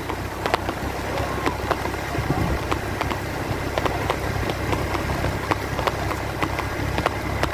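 Vehicle engine running steadily with a low hum, heard from on board, with frequent irregular clicks and rattles over it.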